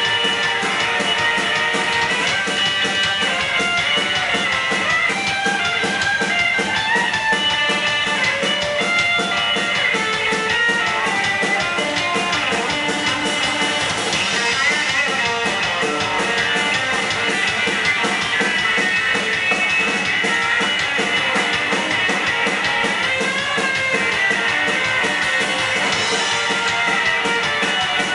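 Rockabilly band playing live: electric guitar picking a run of notes over drums, with no singing in this stretch.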